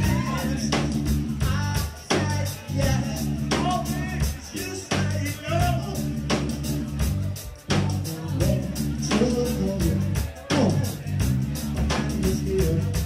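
Background music: a song with drums and a sung vocal over a steady bass line.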